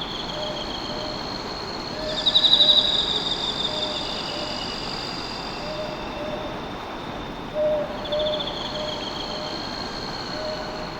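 Lively forest ambience: insects trill in steady high tones, a louder rapid trill comes about two seconds in and again near eight seconds, and a low call repeats in short notes throughout.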